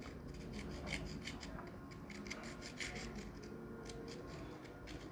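Faint, short scraping strokes as a line is lightly scored into a wooden pencil that has been shaved back to its graphite core.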